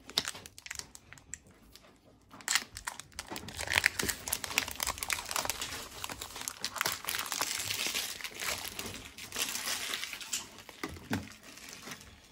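Foil wrapper of a Pokémon card booster pack crinkling as it is torn open and handled: a few light rustles at first, then a dense run of crinkling through the middle that fades out near the end.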